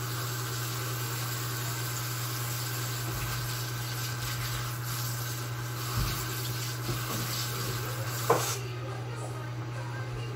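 Pot of pork stew simmering under a glass lid: a steady hiss over a low hum, with two soft knocks about six and eight seconds in. The hiss cuts off suddenly about eight and a half seconds in, leaving the hum.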